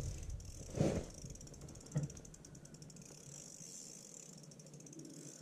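Fishing reel's drag clicking rapidly as a hooked lake trout pulls line, after two dull knocks about one and two seconds in. The drag is set too light for the fish.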